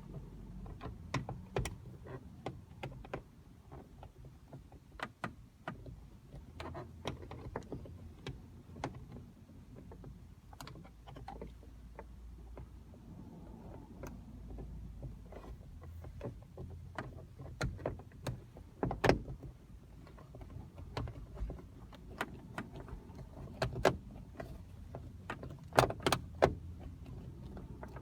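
Irregular clicks and knocks of plastic interior trim being handled and pressed into place around a car's front interior light, over a low steady hum.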